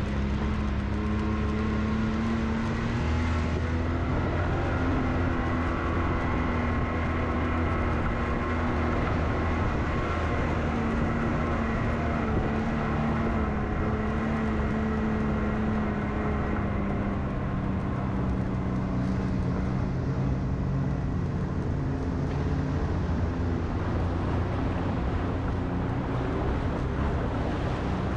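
Side-by-side UTV engine running steadily under way on a dirt trail, its pitch drifting slightly up and down with the throttle.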